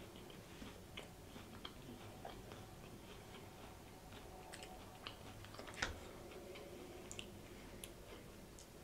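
Faint close-up chewing with soft wet mouth clicks, and a sharper click about six seconds in.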